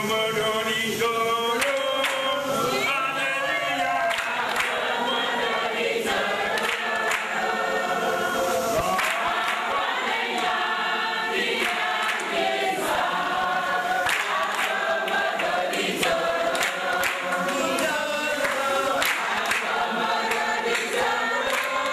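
A crowd singing together, with hand-clapping along to the song.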